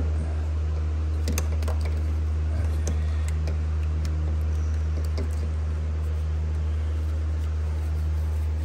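A steady low hum that runs unchanged throughout, with a few faint, separate clicks and taps on top.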